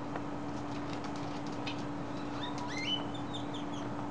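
Dalmatians scuffling on concrete, with scattered light ticks from their claws over a steady hum. A bird chirps a quick run of high notes about two and a half seconds in.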